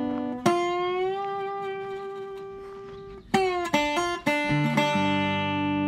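Background music: a guitar playing slow, ringing plucked notes and chords, a few of them sliding up slightly into pitch.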